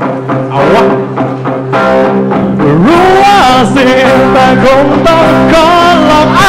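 Live rock band playing: electric guitar chords over drums, with a man singing into a microphone from about two and a half seconds in.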